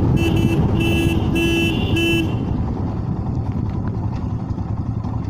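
Motorcycle engine running under heavy wind noise while riding. A horn gives four short toots in quick succession in the first two seconds or so.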